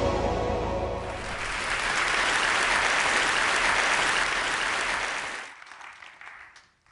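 Short intro music ends about a second in, then a theatre audience applauds. The clapping thins out and dies away near the end.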